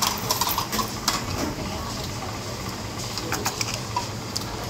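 Noodle-stall kitchen background: a steady low hum, with light clinks of metal utensils and spoons, most of them in the first second.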